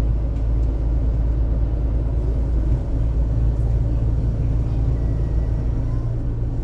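Steady low rumble of a double-decker city bus under way, its engine and road noise heard from inside the cabin.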